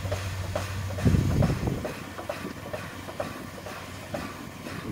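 Steam locomotive moving slowly, with regular clicks about twice a second from its wheels and running gear and a loud low rumble about a second in.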